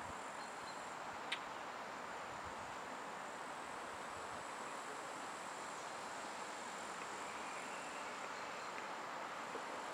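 Faint steady outdoor background hiss with crickets chirping, and one short click about a second in.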